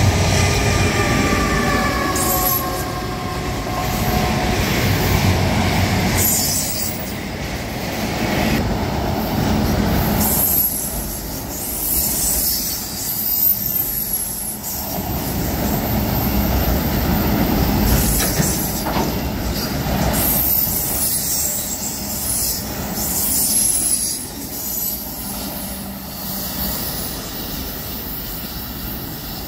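CSX manifest freight train of autorack cars rolling past: a steady rumble and clatter of steel wheels on the rails, with recurring high wheel squeal and a squeal tone dropping in pitch in the first few seconds. The sound eases off near the end as the last cars move away.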